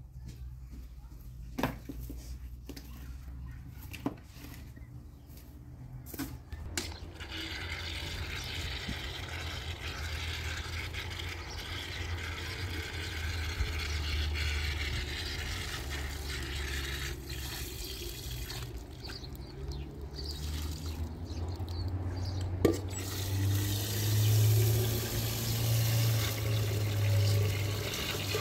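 A few sharp knocks, then water running steadily from about seven seconds in; it breaks off briefly about two-thirds of the way through and starts again.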